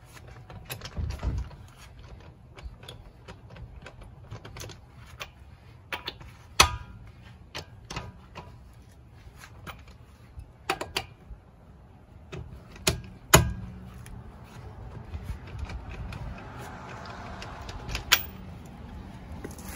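Clicking and clinking of a socket wrench working a car wheel's lug nuts, with three sharp metal clanks that ring briefly.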